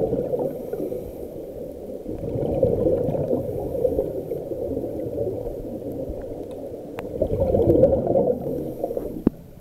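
Scuba diver's exhaled bubbles gurgling and rumbling from the regulator, recorded underwater. It swells three times, a few seconds apart, with each breath out.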